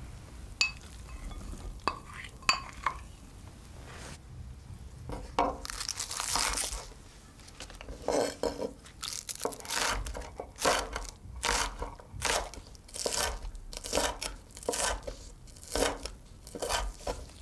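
A few light knocks of glass bowls, then a chef's knife slicing scallions against a wooden board in even chopping strokes, about two a second.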